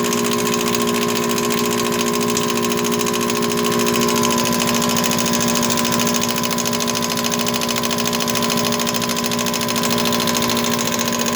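Impact wrench hammering steadily and without pause on a tight wheel lug nut. The sound is a fast, even rattle with a steady hum underneath.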